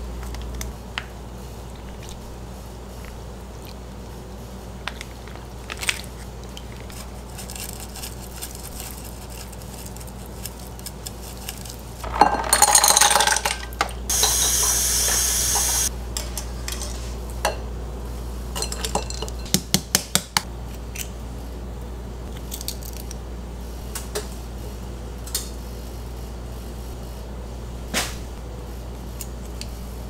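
Kitchen work sounds: scattered light clinks of dishes and utensils over a steady low hum. Near the middle comes a louder clatter, then about two seconds of steady rushing noise, and a few seconds later a quick run of about six sharp clicks.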